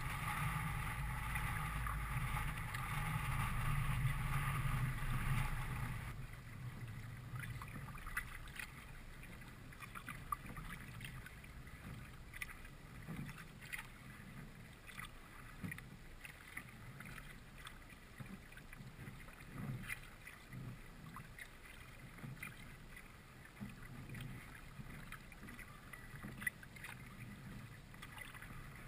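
Kayak paddling: water splashing and dripping off the paddle and lapping at the hull. For the first six seconds wind rumbles on the microphone. After that the sound drops abruptly to quieter, irregular small splashes.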